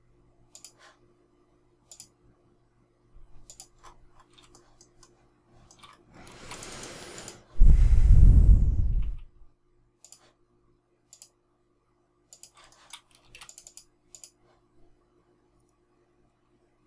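Computer mouse clicking, in scattered single clicks and short runs. Past the middle comes a loud rush of air noise on the microphone, heaviest in the lows and lasting about a second and a half.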